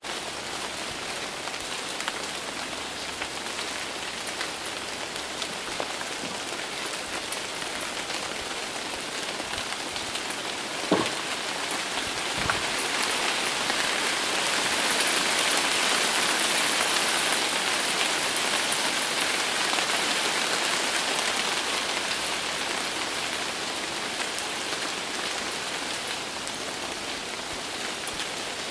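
Steady rain falling, growing louder through the middle and easing again toward the end, with a couple of brief knocks a little before halfway.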